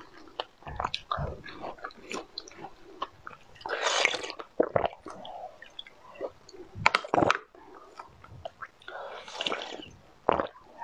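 Close-miked eating sounds: wet chewing of a strawberry with sharp mouth clicks, and two longer slurps, about four seconds in and again near the end, as the filling is sucked out of plastic test tubes.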